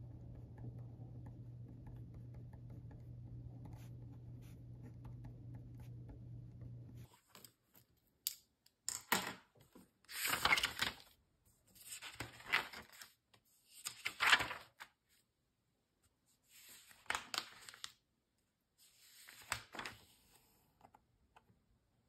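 Ballpoint pen writing on paper over a low steady hum. About seven seconds in, the sound gives way to the pages of a spiral-bound paper notebook being turned: about six rustles of paper, a second or two apart.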